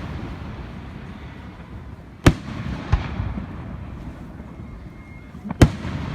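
Fireworks bursting overhead: a loud bang about two seconds in, a softer one shortly after, and another loud bang near the end, with a low rumble in between.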